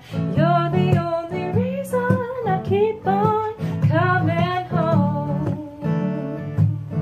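A woman sings a slow song to her own strummed Martin acoustic guitar. Her voice drops out about five seconds in while the guitar chords carry on.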